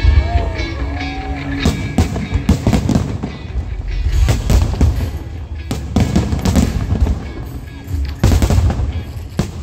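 Aerial firework shells bursting in quick succession, a dense run of sharp bangs over a low rumble, with music playing underneath.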